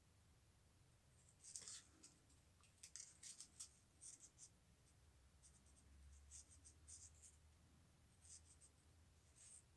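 Faint short clicks and scratches of glass bugle beads and thin beading wire being handled and twisted between the fingers, in near silence.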